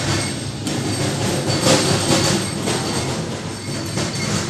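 Loud, steady rumbling noise that swells briefly about a second and a half in.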